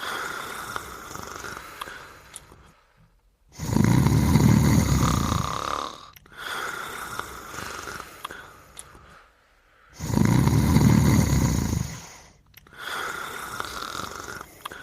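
Sleeper snoring in slow cycles: two loud, low snores about six seconds apart, each lasting about two seconds, with softer breaths between.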